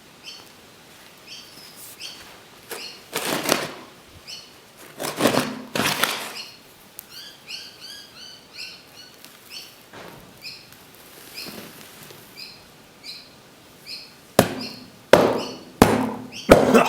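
Small birds chirping again and again, with a few short scraping noises about three and a half seconds in, around six seconds in, and several more near the end.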